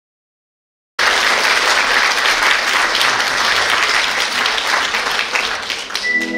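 Audience applauding, starting abruptly about a second in after silence. Near the end, held musical notes begin to sound under the clapping.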